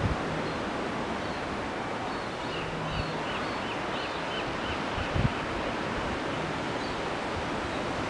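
Steady sea surf and wind noise, with a quick run of about seven faint high peeps from the young gull chick a few seconds in, and a couple of soft thumps.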